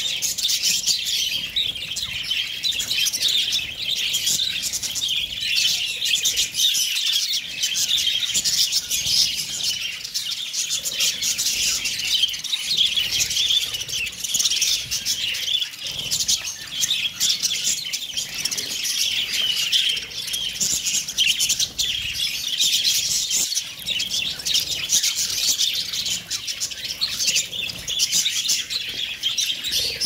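A large flock of budgerigars chattering with dense, unbroken high chirping, with wings fluttering now and then as birds hop about while feeding.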